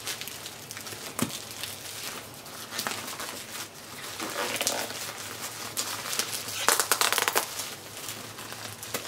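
Taped plastic mailing bag being handled and picked open by hand, the plastic and packing tape crinkling and crackling irregularly, with a louder stretch of crinkling about seven seconds in.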